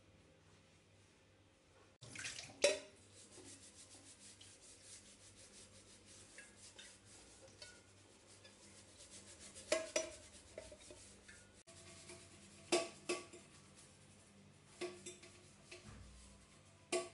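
A soapy sponge scrubbing a kettle by hand, with a few clinks and knocks as the kettle and its metal lid are handled in the sink, some ringing briefly.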